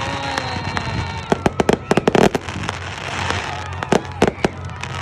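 Fireworks going off: many sharp cracks and bangs in quick clusters, thickest between about one and two seconds in and again near four seconds.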